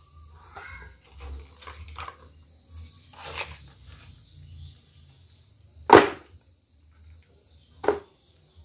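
Handling noises from cleaning a mud crab by hand: scattered soft clicks and scrapes, with a sharp knock about six seconds in and a smaller one about two seconds later, over a low steady hum.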